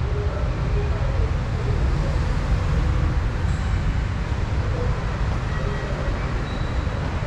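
Steady low rumble of a subway station concourse, a little stronger from about a second in, with faint distant sounds over it.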